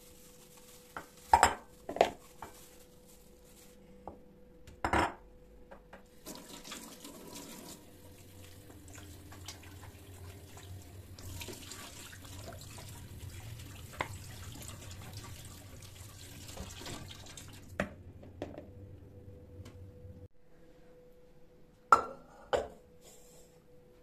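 Kitchen tap running steadily into a plastic colander while pieces of bone-in meat are rinsed under it. Sharp clunks of the meat and bowls before the water starts, and two more about two seconds before the end, over a faint steady hum.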